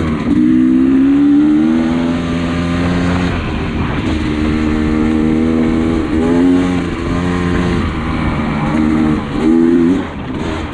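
Dirt bike engine being ridden hard, its note climbing and falling as the throttle and gears change, with a quick rev up and cut near the end.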